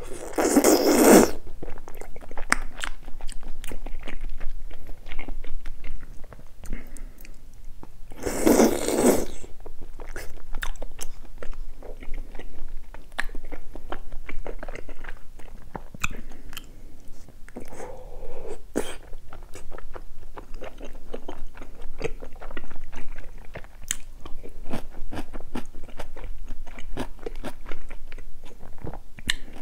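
Close-miked eating of bunmoja, thick chewy glass noodles in spicy broth: two loud slurps lasting about a second each, at the start and about eight seconds in, then steady wet chewing with many sharp mouth clicks and smacks.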